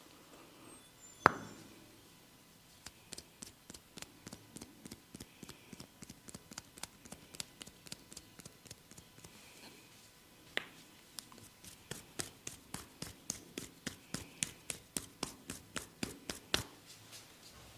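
Barber's hands at work during an oil head massage: one loud sharp crack about a second in, then two long runs of quick, evenly spaced sharp taps at about three a second.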